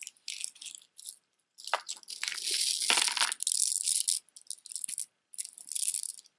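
Strands of beads clicking and clattering against each other as they are handled. The densest clatter comes from about two to four seconds in, as a long strand of round stone beads is picked up and pulled out.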